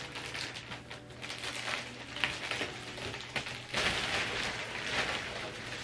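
Clear plastic wrapping crinkling and rustling as it is pulled off a gaming chair's backrest, louder about two-thirds of the way through.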